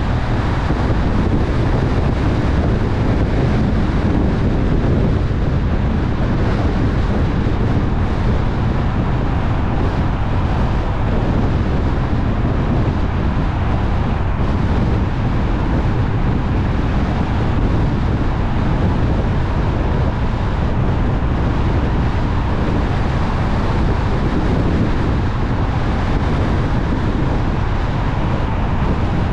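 A car driving at a steady speed on a paved road: a constant low rumble of tyre and road noise mixed with wind rushing over the microphone.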